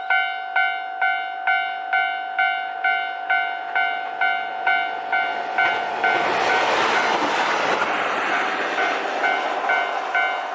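Japanese level-crossing alarm bell dinging about twice a second. About six seconds in, a JR Hokkaido H100 diesel-electric railcar passes over the crossing, and its engine and wheel noise swells over the bell. The bell stops near the end.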